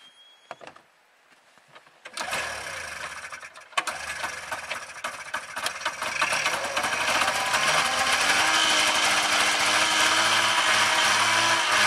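1993 Arctic Cat Lynx snowmobile's fan-cooled two-stroke twin on a cold start: it catches about two seconds in and runs uneven at first, then settles into a louder, steadier run from about six seconds, its pitch rising slightly near the end.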